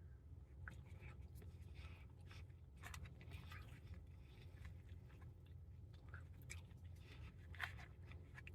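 Faint chewing of a mouthful of sausage, scrambled egg and hash brown, with soft scattered mouth clicks over a low steady hum.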